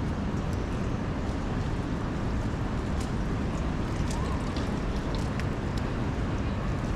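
Steady rumble of rain and city traffic, with a few scattered sharp ticks over it.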